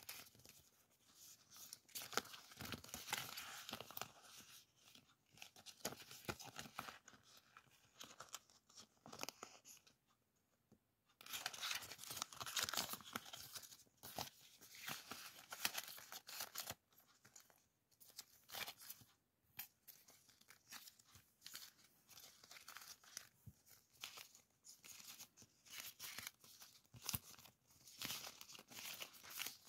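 Clear plastic packaging sleeve crinkling and tearing as hands work it open, in faint irregular crackles with a short pause about ten seconds in.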